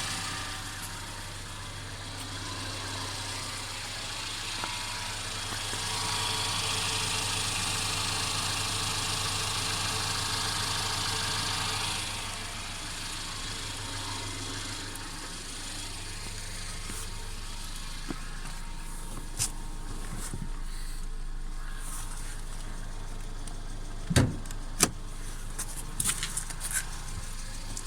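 Mercedes-Benz CLA 250's turbocharged four-cylinder engine running with the constant rattle its owner is documenting as a fault. A few sharp knocks come near the end.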